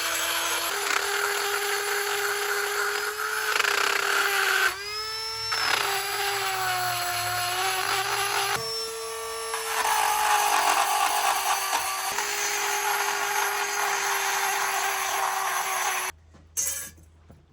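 Power grinder grinding metal out of a new turbo turbine housing, running with a steady whine whose pitch sags and recovers as it bites under load; it stops abruptly about 16 seconds in.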